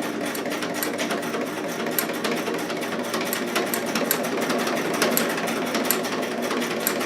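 Vintage Singer Stylist 418 zigzag sewing machine running steadily at speed, its needle making rapid, even strokes through layered fabric.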